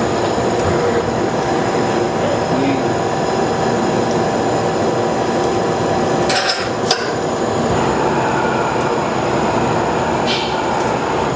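Doosan Puma 2000SY CNC turning center running under power: a steady mechanical hum with a faint whine. Brief clicks come about six to seven seconds in and again near the end.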